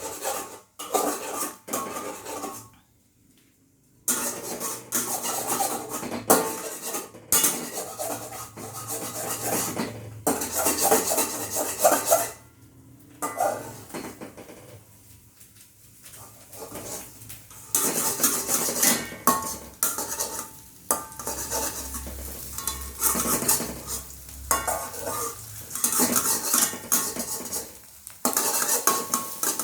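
A kitchen utensil clinking and scraping against cookware while eggs are cooked, in irregular bursts with short pauses. Eggs sizzle as they fry.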